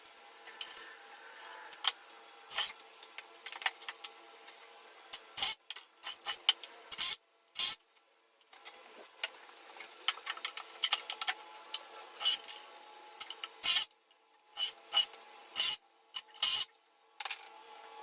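Woodworking noises: short scrapes, rubs and knocks of wood being handled and worked, over a faint steady background hum that drops out abruptly several times.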